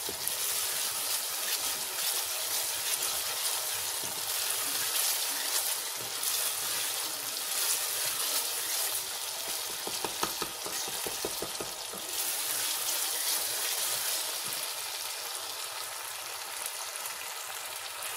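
Tomato-and-spice masala sizzling steadily in hot oil in a stainless steel pot as it is fried and stirred with a wooden spoon. A short run of quick ticks comes near the middle.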